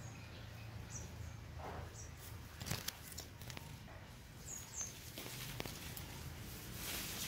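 Outdoor ambience: short, high bird chirps several times over a steady low hum, with a few brief knocks, the loudest about a third of the way in.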